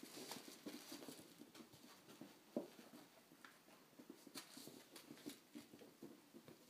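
Faint pattering and scuffling of kittens' paws on carpet and against a fabric cat cube as they play, in irregular little taps, with one sharper knock about two and a half seconds in.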